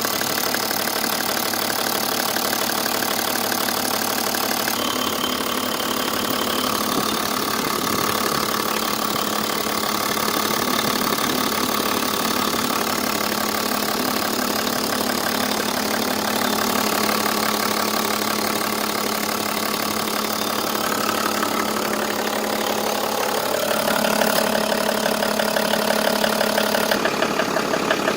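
Toyota 1HD-FTE straight-six turbodiesel idling with a knock, the fault this engine is showing. Near the end the engine speed rises a little and it gets louder, with a more pronounced regular pulse.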